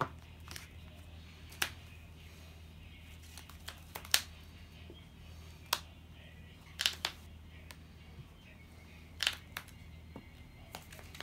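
Trading cards being handled and laid down on a playmat: a string of short, sharp clicks and snaps at irregular intervals, the loudest about four seconds in, over a low steady hum.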